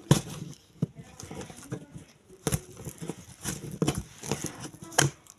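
Packaging being handled during an unboxing: irregular rustling and crinkling with sharp clicks and knocks, the loudest just after the start and others about two and a half, four and five seconds in.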